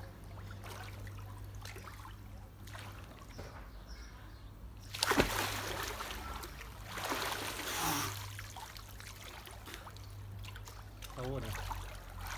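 Water splashing and sloshing in an inflatable above-ground pool as a person moves about in it, with a louder splash about five seconds in and another about eight seconds in.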